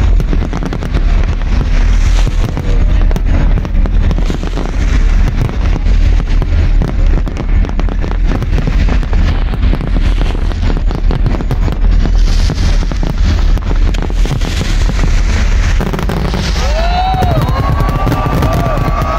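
Fireworks display firing a dense barrage: rapid overlapping bangs and crackling over a continuous deep rumble. About three-quarters of the way through, the bangs thin out and a crowd starts cheering and whooping.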